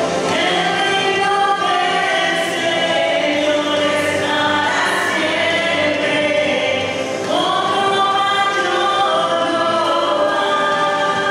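Three women singing a Spanish-language Christian worship song together into handheld microphones, amplified through the sound system, on the repeated line "El reino del Señor es para siempre, otro mayor no hay."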